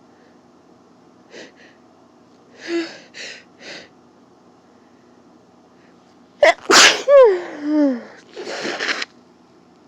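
A person with a cold sneezing once, loudly, the voiced part of the sneeze falling in pitch, after a few short sniffing breaths in the first seconds, with a noisy breath just after the sneeze.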